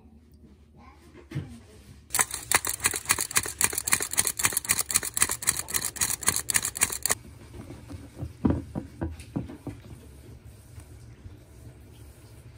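Flour being sifted through a wire-mesh sieve over a glass bowl: a rapid, even rattle of the shaken sieve starts about two seconds in, runs for about five seconds and stops abruptly. A few separate knocks follow, then quieter stirring of batter.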